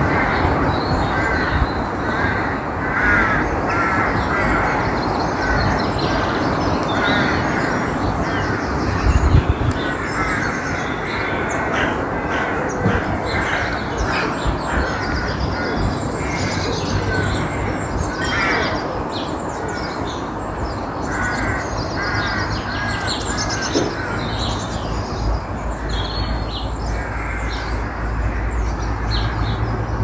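Crows cawing in a repeated series near the start, with small songbirds singing and chirping in quick high notes through the rest, over a steady background hiss.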